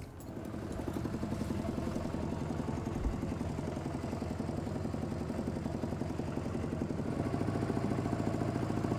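A small vehicle engine running steadily with a rapid, even chugging, growing a little louder about seven seconds in.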